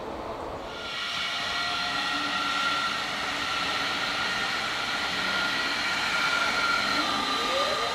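An S-Bahn electric multiple unit passing close, its electric drive giving several steady high whining tones over the rumble of the train. Near the end a lower whine rises in pitch as the train picks up speed.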